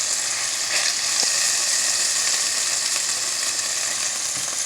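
Chicken thighs frying in a hot skillet: a steady, even sizzle with a few faint crackles.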